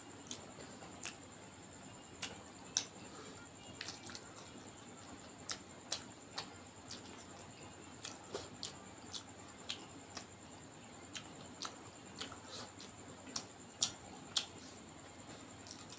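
Close-miked eating sounds: a person chewing duck curry and rice, with irregular wet smacks and mouth clicks about two a second.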